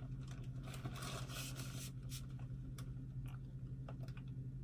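Faint, scattered clicks and rustles of an object being handled, over a steady low electrical hum.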